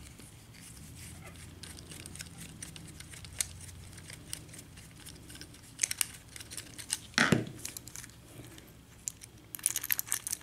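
Small clicks, taps and scraping from a padlock being taken apart with a screwdriver to free its lock cylinder, with one sharper knock about seven seconds in and a quick run of clicks near the end.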